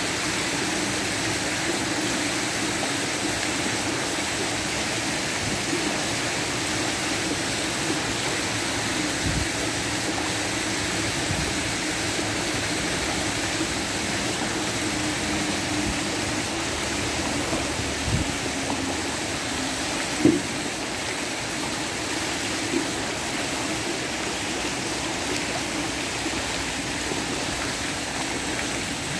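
Steady rush of flowing water, with a few light knocks in the second half, the sharpest about two-thirds of the way through.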